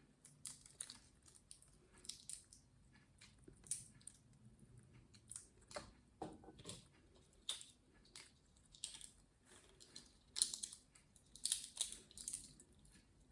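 Green-cheeked conure's beak crunching and nibbling walnut pieces: irregular small crisp clicks and crunches, a few louder clusters near the end.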